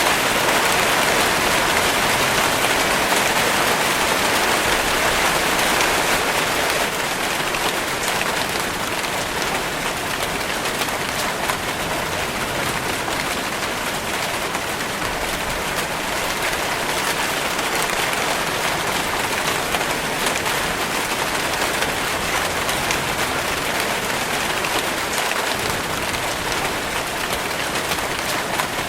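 Steady rainfall: a dense, even hiss of drops on a surface, easing slightly about a quarter of the way in.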